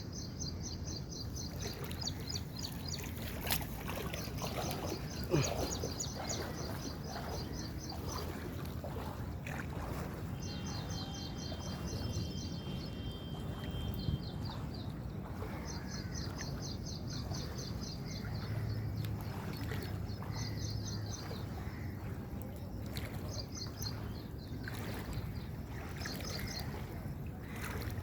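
Steady wash of heavy rain and running water. High chirps repeated in fast trains come and go over it, with a couple of sharp knocks a few seconds in.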